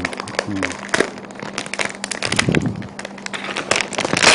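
Clear protective plastic film being peeled off a new laptop's lid: a run of irregular crinkles and crackles, loudest near the end.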